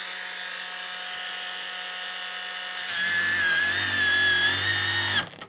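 Makita 40V XGT brushless angle grinder with a stripping disc, on its lowest speed setting, running free with a steady whine. About three seconds in it bites into rusty sheet metal and gets louder, the pitch wavering under load. Near the end the motor stops abruptly as its safety cut-out trips.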